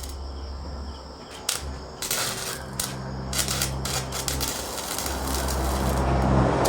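Electric arc welding crackling: irregular sharp clicks, then a dense sputtering crackle from about two seconds in. A steady low hum starts soon after and grows louder toward the end.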